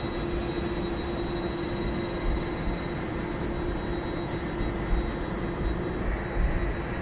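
Boeing 747-400 jet engines running at taxi power: a steady rumble with a constant hum and a thin high whine.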